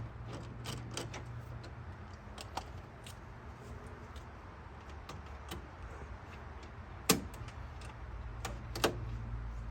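Small metallic clicks and clinks of hand tools working a radiator hose loose, with two sharp clanks near the end, over a steady low hum.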